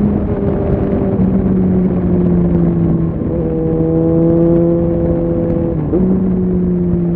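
Suzuki Bandit 650's inline-four engine running under way with a rush of noise behind it. Its note sinks slowly, then jumps up sharply twice, about three seconds in and about six seconds in.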